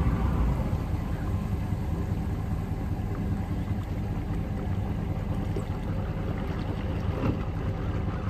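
Outboard motors running steadily as fishing boats travel on the river, with a constant low engine drone mixed with water noise.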